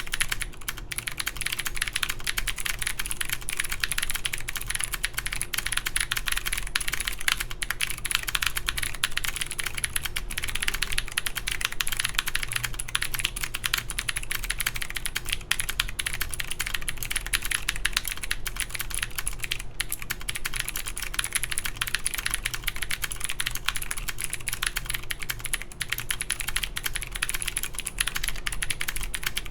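Continuous typing on a mechanical keyboard with clicky Cherry MX Blue switches in an aluminium full plate under Cherry keycaps: a dense, unbroken stream of sharp key clicks.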